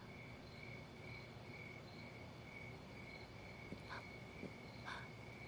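Faint crickets chirping steadily in a rhythmic pulse, with two faint short ticks near the end.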